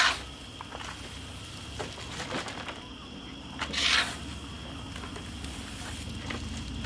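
Shovel digging into a pile of wood chips and tossing them into a dump cart: a short sharp scrape at the start and a longer, louder crunching scoop about four seconds in.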